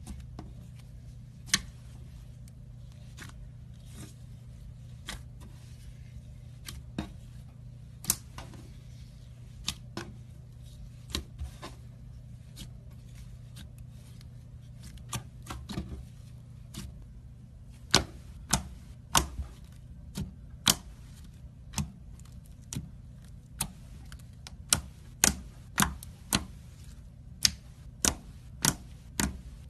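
Slime being pressed and poked with the fingers, making sharp little clicks and pops as air pockets burst, scattered at first and coming about one or two a second in the second half. A steady low hum sits underneath.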